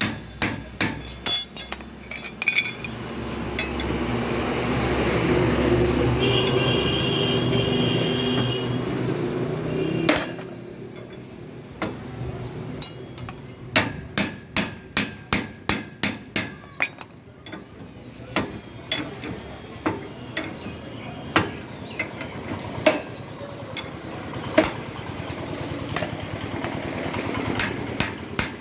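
Hammer blows ringing on steel as a broken wheel bearing is driven out of the axle hub. There is a quick run of strikes, a steady mechanical running noise from about 3 to 10 seconds in, then a fast run of about two strikes a second and scattered single blows.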